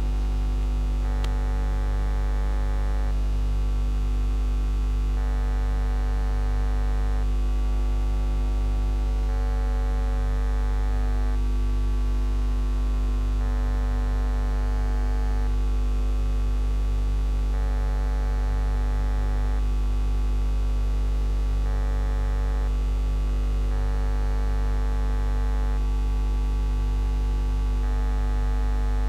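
Steady electrical mains hum: a loud, unchanging low buzz with a dense stack of overtones.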